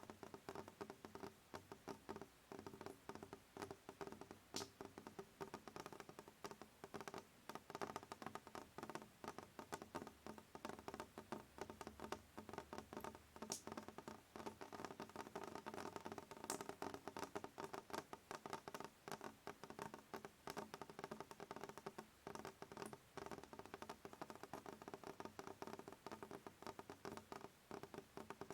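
Rain falling steadily, a dense pattering of drops, with a few sharper single drops standing out now and then.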